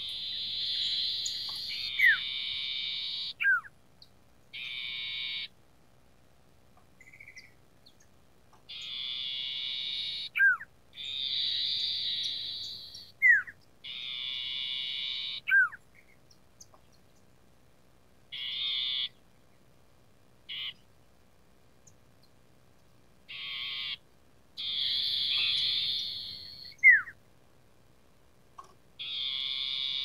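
Common iora singing: a dozen or so short phrases of rapid, buzzy trilling, several of them ending in a quick downward-sliding whistle, with pauses of a second or more between them.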